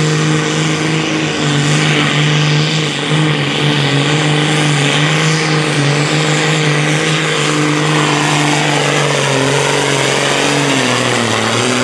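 Diesel engine of a modified Case IH 7240 pulling tractor running flat out under load as it hauls a weight-transfer sled, a loud steady drone whose pitch drops slightly near the end as the tractor slows.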